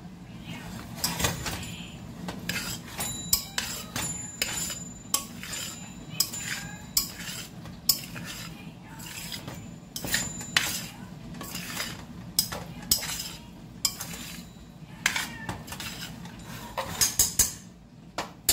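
Metal spoon stirring pasta in a large stainless steel pot, scraping and knocking against the sides and rim at irregular intervals, some knocks ringing briefly. A quick run of clinks comes near the end, over a low steady hum.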